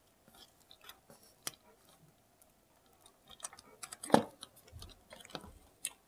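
Small scattered clicks and taps of hands handling an opened plastic hair dryer housing and its internal switch and wiring, with one louder knock about four seconds in.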